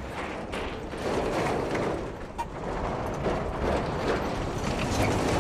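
Road train truck on the move: a rough, noisy rumble of engine and tyres with a clatter of short rattles.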